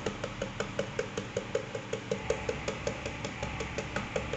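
Rapid, even tapping, about five knocks a second, as a plastic container of chives is shaken to sprinkle them over a pizza.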